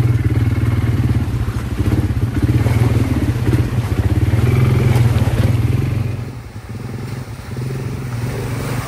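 An ATV engine runs steadily under load as it is ridden over a rough, wet dirt track, with rattling and clatter. About six seconds in, the sound drops to a quieter engine.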